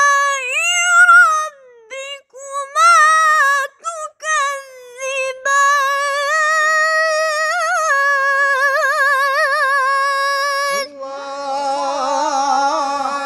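A boy's high voice reciting a Quranic verse in tarannum, the melodic Quran-chanting style, in long, held, ornamented phrases with quavering turns on the sustained notes. Near the end a man's lower voice takes up the recitation.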